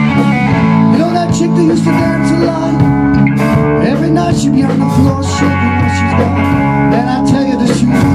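Rock band playing an instrumental passage live: an electric guitar lead line with bent notes over electric bass and a drum kit with cymbals.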